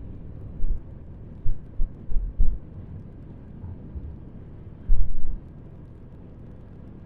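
Wind and road rumble on a motorcycle-mounted action camera's microphone while riding, a steady low noise broken by several brief, louder gusts buffeting the mic, the longest about five seconds in.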